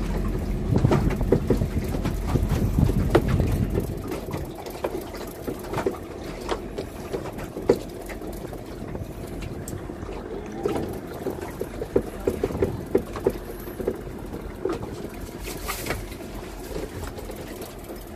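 Small fishing boat's engine running steadily, with a low rumble that is louder for the first four seconds and scattered sharp clicks throughout.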